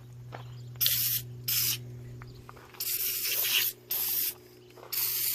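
Aerosol can of foaming engine degreaser spraying in five short hissing bursts, the longest near the middle, over a steady low hum.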